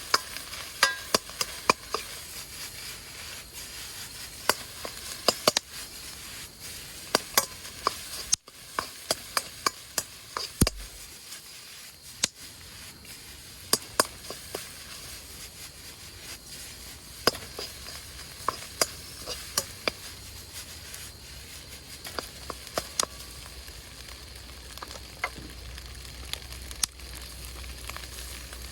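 Fried rice sizzling in a Chinese wok while a metal spatula stirs it, knocking and scraping against the pan in irregular sharp clacks over a steady frying hiss.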